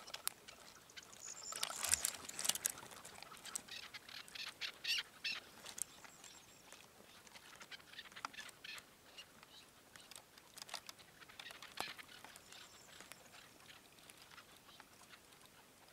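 Chukar partridge calling: a run of short, sharp clucking notes, thick in the first few seconds and then thinning to scattered single notes.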